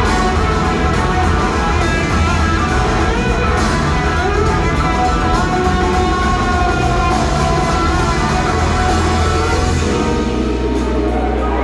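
Live rock band playing, with an electric guitar lead of long held and gliding notes over drums, bass and organ, heard from high up in a large theatre hall.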